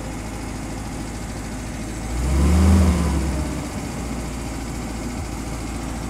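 Idling engine of a 1953 Willys CJ3A snowplow Jeep, with one brief swell in engine pitch and loudness a little after two seconds in while the plow's power-tilt lever is worked.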